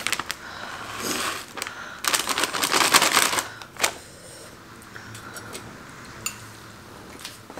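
A plastic food packet crinkling, loudest from about two to three and a half seconds in. Single clicks of chopsticks against a cooking pot follow.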